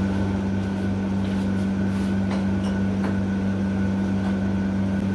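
A steady low machine hum that comes in abruptly, with a few faint clicks and taps over it.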